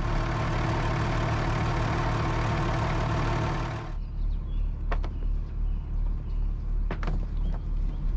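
A trawler's twin diesel engines idling with a low, pulsing rumble. For the first four seconds a loud rushing hiss lies over it and then cuts off suddenly. Two sharp knocks follow.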